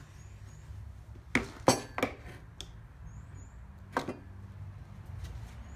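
A few sharp clinks and knocks of small steel steering-column parts, ball bearings and races, being picked up and set down. The loudest comes a little under two seconds in, with a last one about four seconds in.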